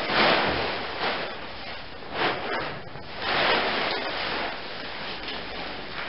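Tent fabric rustling and swishing in several swells as the tent is handled and spread out, the biggest near the start and about halfway through.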